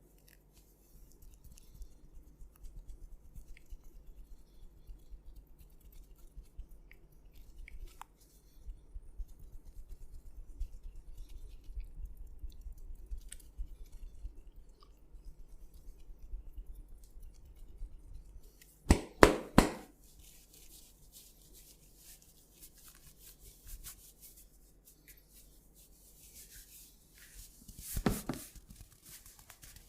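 Close-miked rubbing of hands over hair and scalp during a head massage, with a quick run of about four sharp strikes two-thirds of the way through and another short loud cluster near the end.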